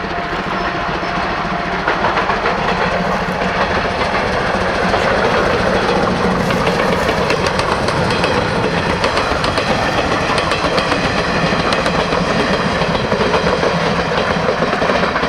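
A steam locomotive hauling passenger coaches runs past, its wheels clattering rhythmically over the rail joints along with the running noise of the train; the sound grows louder over the first couple of seconds as it draws near, then holds steady.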